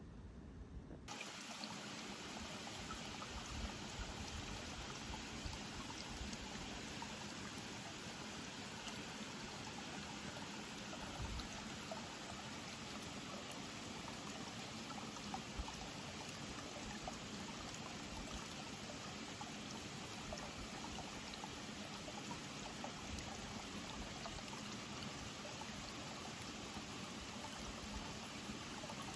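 Steady trickling of running water, an even hiss that starts abruptly about a second in and holds level, with a few faint ticks.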